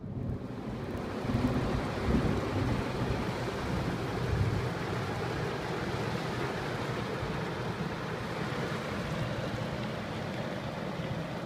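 Heavy downpour drumming on a car's roof and windshield, heard from inside the car: a steady dense hiss with a few low rumbles swelling in the first half.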